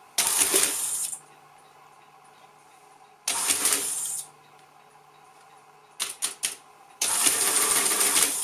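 Lagomarsino Numeria 8723 electro-mechanical calculator on its first test run after repair: its motor-driven mechanism runs through a calculating cycle for about a second, twice, with a pause between. Near the end a quick run of sharp key clicks is followed by a longer cycle of almost two seconds.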